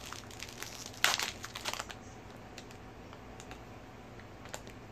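Plastic candy wrapper crinkling, loudest in a short burst about a second in, then a few faint crackles.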